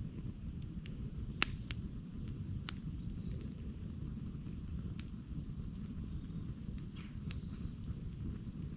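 Wood campfire crackling, with scattered sharp pops, the loudest about a second and a half in, over a steady low rumble.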